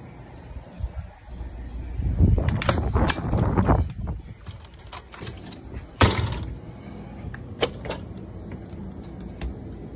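Motorhome entry door being worked: a couple of seconds of rattling and knocking, then one sharp bang about six seconds in, followed by a few light clicks.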